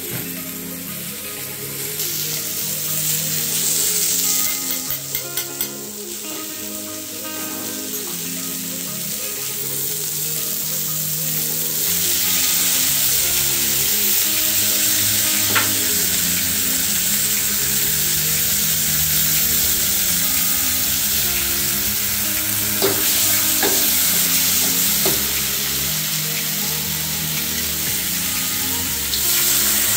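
Food sizzling in a hot wok as bean sprouts, onion and beef are stir-fried with a metal ladle, which now and then clinks and scrapes against the wok. The sizzle gets louder about twelve seconds in, when sauce is poured into the wok.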